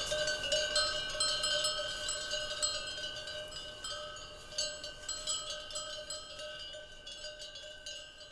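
Many cowbells on a herd of cows clanking irregularly, their ringing tones overlapping. The sound gradually fades away.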